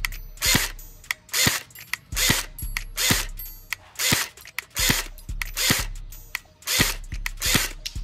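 Umarex HK 416 low-power airsoft electric gun firing single shots, about one a second. Each shot is a short whirr of the gearbox cycling.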